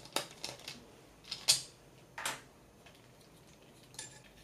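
A few small, sharp clicks and taps, the loudest about a second and a half in: an E3D hot end and its plastic mount being handled as the hot end is worked free of the mount.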